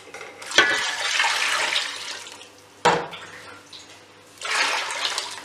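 Water poured from a jug into a pot of karhi batter of yogurt and gram flour, in two pours: a longer one and then a short one near the end. A sharp knock falls between them.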